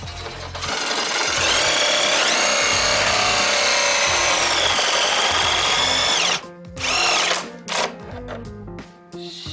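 Power drill running for about six seconds, its whine rising in pitch and then falling, then a second short burst, while a hole is drilled in the bumper for an intercooler spray nozzle.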